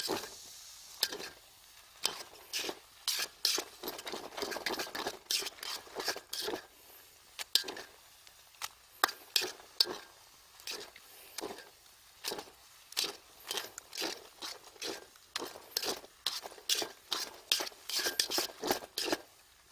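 A metal utensil stirring and scraping in a pot or pan, with irregular clinks and scrapes several times a second.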